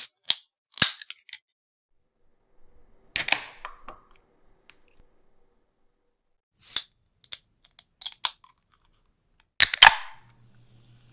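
Aluminium beer cans opened several times in a row: sharp metallic clicks and pops of the pull tab, some followed by a short fizzing hiss of escaping gas.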